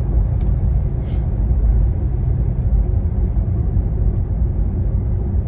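Steady low rumble of tyres and road heard inside the cabin of a moving Porsche Taycan Turbo S, an electric car, so no engine note is heard over it.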